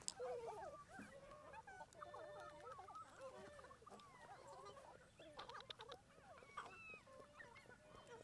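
Faint, overlapping bird calls in a wavering chorus, with a short run of clicks about five and a half seconds in.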